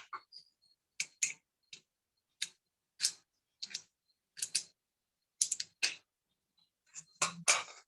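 Light, irregular clicks and taps, about a dozen, some in quick pairs, from a paintbrush and paint things being handled on the desk while painting.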